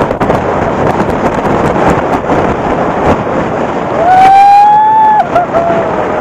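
Strong wind buffeting a phone's microphone, with a rushing roar and repeated thumps. About four seconds in a loud, high held tone starts; after about a second it drops lower and goes on to the end.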